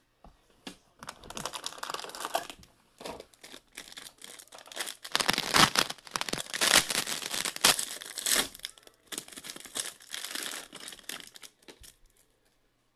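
Foil trading-card pack crinkling as hands tear it open and slide the cards out, in irregular rustling crackles that are loudest in the middle stretch.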